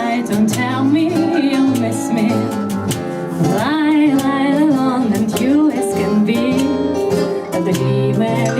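A voice singing a melodic song with vibrato, accompanied by strummed acoustic guitar.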